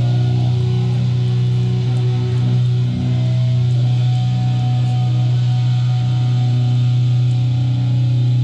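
Live band music: electric guitar and bass guitar holding a loud, steady low drone, with sustained notes above it and hardly any drum hits.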